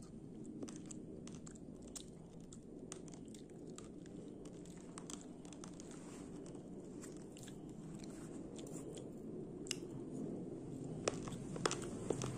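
Raw, uncooked brown rice grains being chewed: a run of small sharp crunching cracks, with a few louder cracks near the end.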